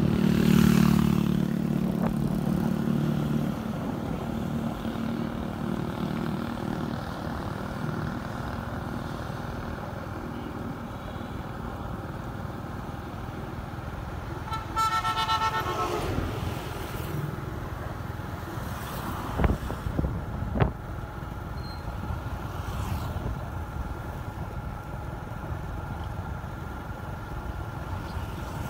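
Steady vehicle engine and road noise while travelling along a highway, with a louder low hum in the first few seconds. About halfway through, a vehicle horn honks once for about a second; two sharp knocks follow a few seconds later.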